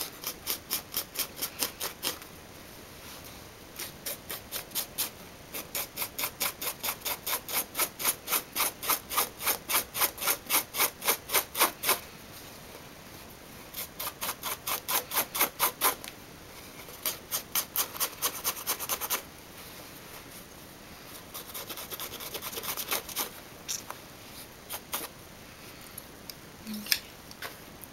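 A single open scissor blade scraping quickly back and forth along the cut edge of a black denim jeans pocket, about four strokes a second. The strokes come in runs of a few seconds with short pauses. The scraping frays the edge into a rough, distressed finish with loose threads.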